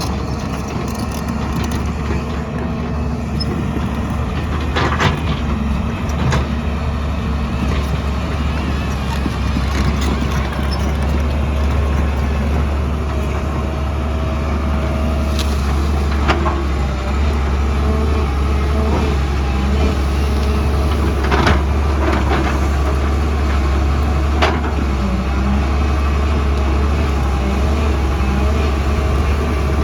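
Heavy hydraulic excavator's diesel engine running steadily with a deep drone, working on a mountainside. Occasional sharp knocks and clanks stand out over it, about seven or eight times.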